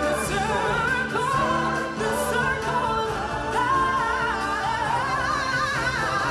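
Live stage-musical song: a singer with a wavering vibrato over loud amplified backing music.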